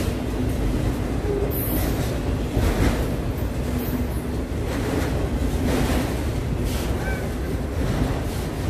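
Freight train of autorack cars rolling past close by: a steady low rumble of steel wheels on rail, with louder swishes recurring every second or two.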